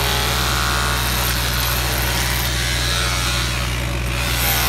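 Demolition hammer chipping the stone facing off a masonry wall, running steadily with a low buzzing hum.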